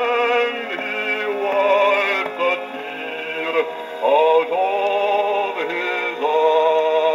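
Wind-up acoustic gramophone playing a 1932 78 rpm shellac record: a male vocal recording with accompaniment, long held notes with a quick vibrato and short breaks between phrases. The sound is thin and horn-coloured, with no deep bass.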